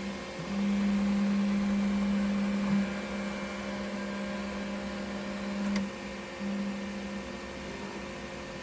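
Elegoo Centauri Carbon 3D printer's motors humming at one steady low pitch as the machine runs its pre-print routine, stopping with a click about six seconds in, then humming again briefly.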